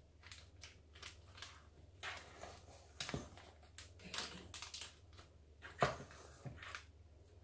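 Spatula scraping thick almond meringue batter from a stainless steel bowl and pushing it into a plastic piping bag, with soft scrapes, the bag rustling, and two sharper knocks about three and six seconds in.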